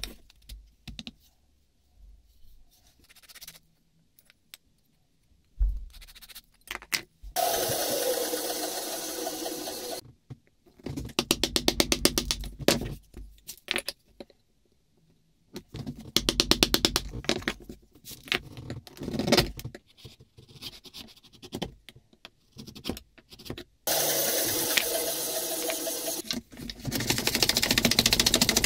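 Hand tools working a hornbeam plane wedge: bouts of scraping strokes separated by pauses, some with a fast, rattling tick to them.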